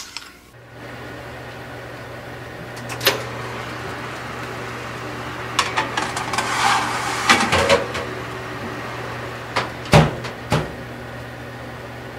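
A built-in oven's fan running with a steady low hum, while a metal baking tray is slid onto the oven rack with scraping and rattling. About ten seconds in the oven door shuts with three quick knocks, the middle one loudest.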